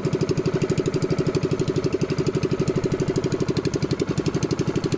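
A small fishing boat's engine running steadily, a fast, even chugging that keeps the same pace throughout.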